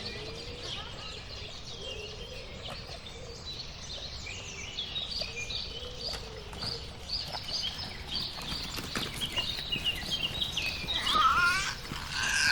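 Outdoor ambience of small birds chirping: many short, high calls over a steady background hush, growing busier after a few seconds, with a louder, lower-pitched call near the end.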